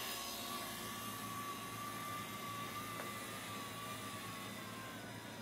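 Stock DC servo motors of a Celestron CG5 equatorial mount, run by OnStep, spinning both the declination and right-ascension axes through their small brass gears: a faint, steady high whine.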